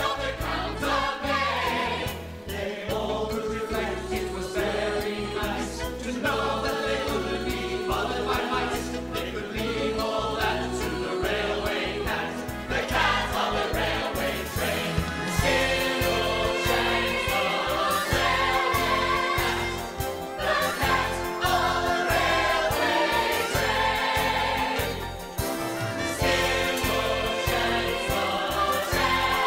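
Musical-theatre band music with a steady, quick beat and ensemble voices, a dance break in the song.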